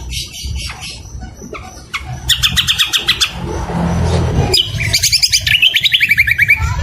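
Songbirds from a cucak kombo tutor mix singing harsh, rapid chattering trills. A short fast trill comes about two seconds in, then a longer rapid trill that falls in pitch.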